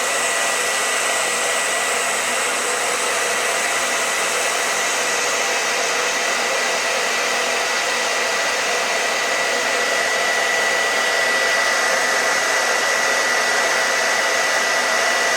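Hand-held hair dryer running steadily, a rush of air with a thin high whine over it. It is heating a fire alarm heat detector to make it trip.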